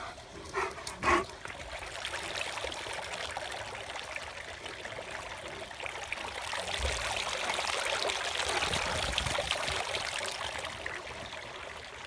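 Steady trickling water. A dog barks twice in quick succession about a second in.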